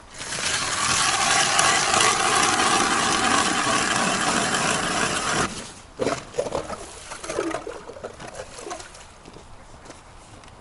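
Ice auger boring a hole through the ice: a steady grinding for about five and a half seconds that stops abruptly, followed by softer scraping and knocking.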